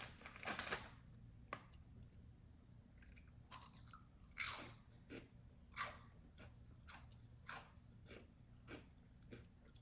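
A person chewing crunchy corn cheese snacks, with irregular crisp crunches about once a second.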